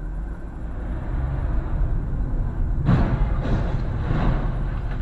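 Steady road and engine rumble heard from inside a moving car, then about three seconds in a loud crash: a car rolling over, with a sharp first impact followed by several more bangs and scrapes as it hits the road.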